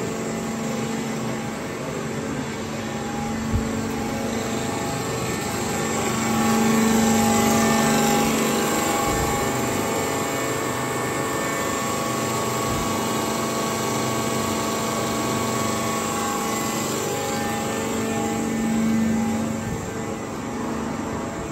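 Hydraulic unit of a Schwarze-Wirtz CNC 100 S pipe bending machine running: its electric motor and hydraulic pump give a steady hum that swells louder twice, about seven seconds in and again near the end.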